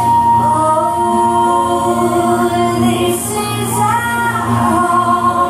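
Music: a song with singing voices, the melody held and gliding over sustained backing tones.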